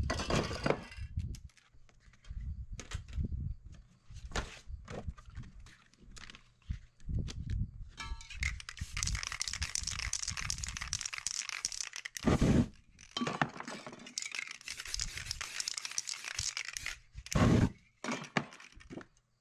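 Aerosol spray-paint can hissing in two long, steady sprays, after several seconds of paper stencil pieces crinkling and being handled with small clicks and knocks.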